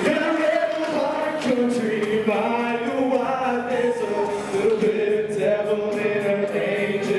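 A man singing into a microphone over music, with long held, sliding notes.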